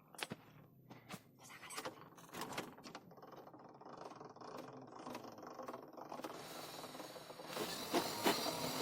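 Metal clinks and knocks from tools being handled, then a steady machine noise that sets in about three-quarters of the way through and keeps running.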